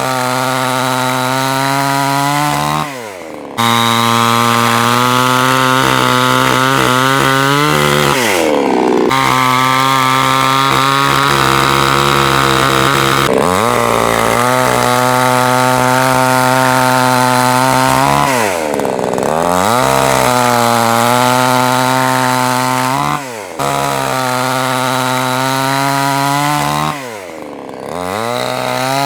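Phoenix Gold 58cc two-stroke chainsaw with a 22-inch bar running at high revs and cutting wood, the engine pitch sagging under load. Several times the revs fall away quickly and climb back up.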